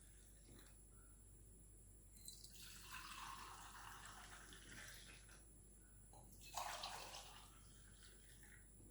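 Faint sound of hot milk being poured, in two pours: a longer one starting about two seconds in and a shorter one starting sharply a little after six seconds.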